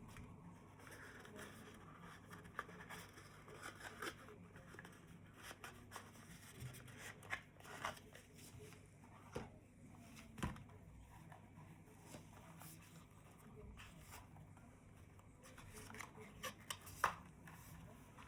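Faint handling noise from headphone packaging being unboxed: scattered light clicks and rustles, a soft knock about halfway through and a sharper click near the end.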